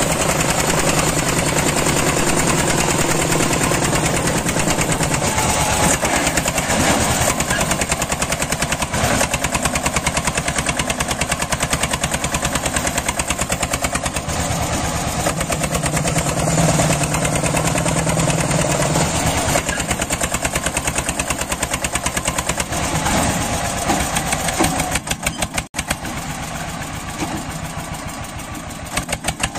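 Small engines of homemade mini tractors running with a fast, steady chugging. The sound breaks off briefly and is quieter near the end.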